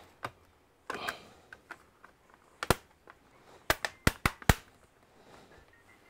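A series of sharp clicks and taps, about eight in all, with a short scuffing burst about a second in and the loudest clicks bunched between two and a half and four and a half seconds in. These are small hard objects (a screwdriver and screws) being handled and set down on a laptop's plastic bottom case and the desk.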